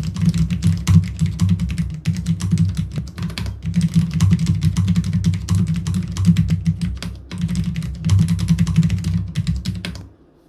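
Fast, continuous typing on a Cherry MX Board 10.0 low-profile keyboard with Cherry MX Low Profile Red linear switches, a dense run of key clacks over a low thud of keys bottoming out, stopping abruptly near the end.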